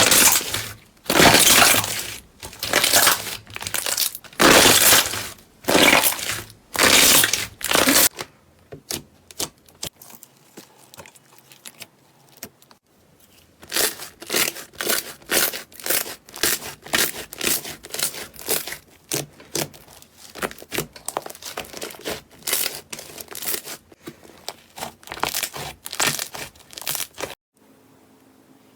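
Slime being squeezed and worked by hand, making a series of short, crackly squishing noises. They come about once a second at first, thin out and grow quieter for a few seconds, then pick up to about two a second before stopping near the end.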